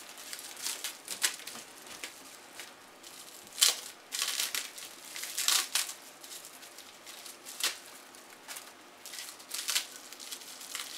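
Plastic bubble wrap being handled and unwrapped by hand, crinkling and rustling in irregular sharp crackles, the loudest about three and a half seconds in.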